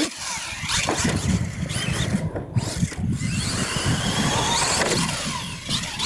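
Radio-controlled monster truck running on a dirt track, its motor and gears whining up and down in pitch as the throttle is worked, with tires churning over dirt. There is a thump about a second in as it lands from a jump.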